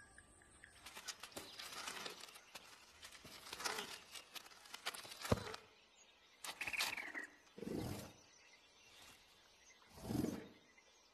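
Cartoon sound effects with no music: small rustles and taps with one sharp click, a short high squeak from the small bird, then two short low growls from a large creature.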